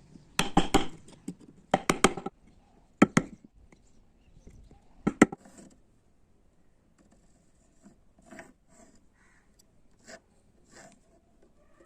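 Hand tool cutting and scraping into wood being carved: a few clusters of sharp chopping cuts in the first half, then fainter scrapes and taps.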